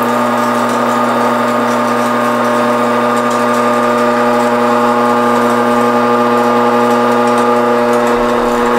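Electric meat grinder running steadily with a loud, even motor hum while seasoned venison sausage meat is pushed through it for a fine grind.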